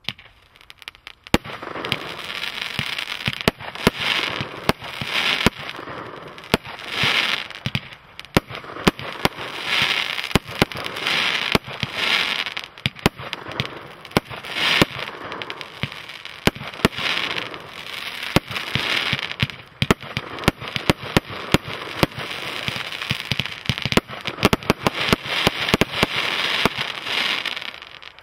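A 36-shot 25 mm firework barrage firing: a rapid, irregular run of sharp shots and small bursts over a continuous hiss. It starts about a second in and stops just before the end.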